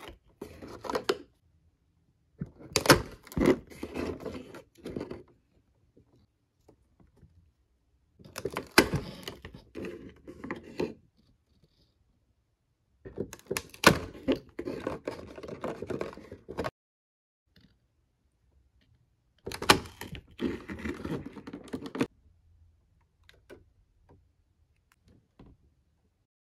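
Cardboard display box doors being pulled open and small plastic blister packs handled. About five bursts of crinkling, tapping and sharp clicks, each one to three seconds long, with quiet gaps between them.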